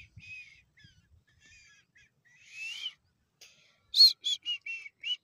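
A francolin (teetar) calling: soft chirps and a rising note, then near the end a quick run of five or six loud shrill notes, the first one the highest and loudest.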